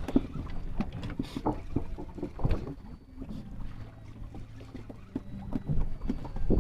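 Small fishing boat at sea: a steady low engine hum with irregular knocks and splashes from handling on board.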